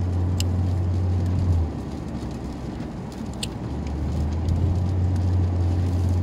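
Cabin noise of a car driving on a wet road: a steady low drone of tyres and engine under a hiss of tyres on wet tarmac. The low drone drops away about a second and a half in and builds back up around four seconds. Two faint short ticks come about three seconds apart.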